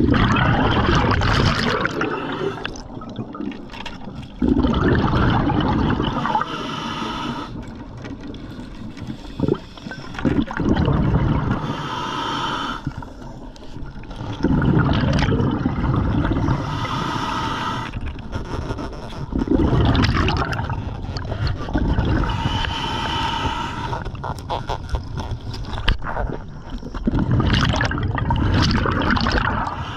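Scuba diver breathing through a regulator underwater: the exhaled bubbles rush and gurgle out in a burst about every five seconds, and between them each inhalation hisses through the regulator with a whistling tone.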